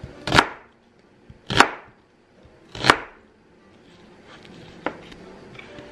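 Chef's knife slicing through a halved onion and striking a wooden cutting board: three firm cuts about a second and a quarter apart, then a lighter click near the end.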